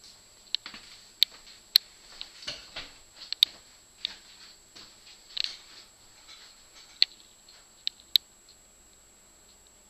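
Irregular sharp clicks and light taps over quiet room tone, a few of them much louder than the rest, stopping about eight seconds in.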